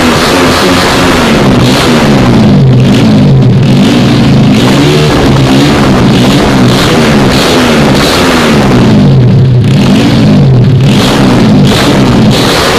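Yamaha Jupiter Z's single-cylinder four-stroke engine with an M4 aftermarket exhaust, revved up and let fall back over and over, very loud.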